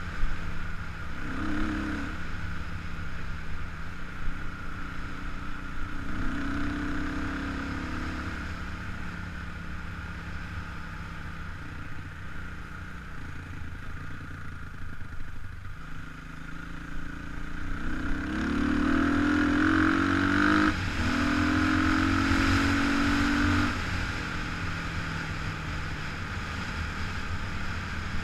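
Kawasaki KLX300 single-cylinder four-stroke dirt bike engine running under way. About two-thirds of the way through it pulls harder and louder for several seconds, then eases back.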